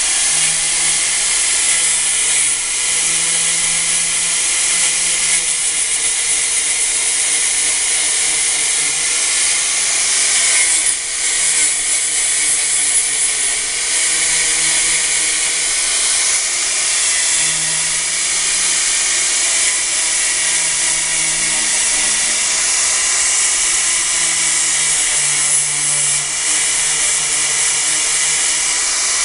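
Electric angle grinder running steadily with a high whine, its disc grinding the protruding screw points flush on a wooden frame and throwing sparks. The pitch wavers slightly as the disc is pressed on and eased off, with a brief dip about eleven seconds in.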